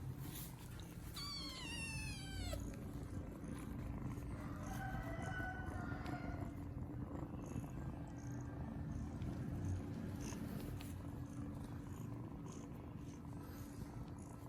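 Kittens mewing: a loud cry falling in pitch about a second in, then a softer one a few seconds later, over a steady low purring with scattered soft clicks.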